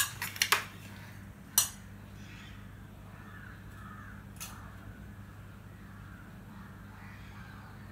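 A steel spoon clinks against the rim and side of a stainless-steel pot a few times in the first two seconds as murabba is scooped out, followed by faint background sounds.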